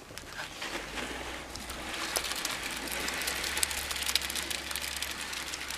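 Wet concrete mix with stones sliding and pouring out of a plastic tub into a footing hole: a gritty hiss full of small stone ticks, which grows louder about two seconds in as the tub tips.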